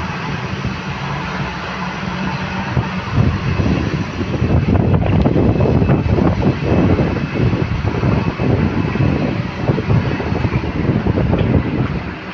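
Military aircraft's engines running loudly, swelling louder and rougher about three seconds in.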